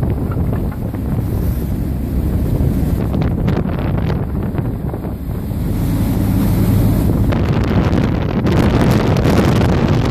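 Heavy wind buffeting the microphone over the running engine of a pilot boat and water rushing along its hull; the noise grows louder about six seconds in.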